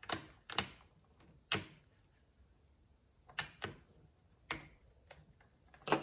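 Irregular light clicks and taps of a Torx screwdriver and a long screw working against a chainsaw's plastic air filter base and housing, about eight in a few seconds.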